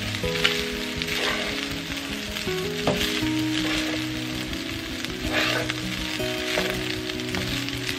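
Cold cooked rice frying in olive oil in a nonstick pan, sizzling as a spatula stirs and scrapes it across the pan in strokes every second or so. Background music with held notes plays underneath.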